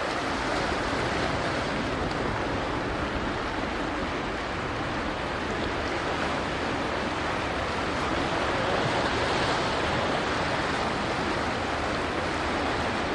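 Sea surf washing steadily against the shore, an even rushing noise with no breaks.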